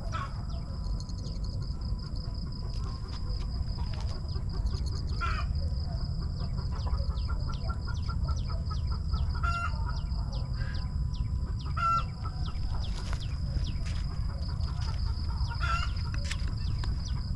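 Outdoor farmyard ambience: small birds chirping in many short notes, chickens clucking a few times, and a steady high-pitched drone, over a constant low rumble of wind on the microphone.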